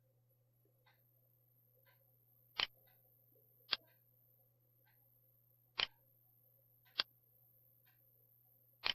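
Computer mouse clicking while the gears are repositioned in the CAD software: five sharp single clicks spaced one to two seconds apart, with a few faint ticks between them over a low steady hum.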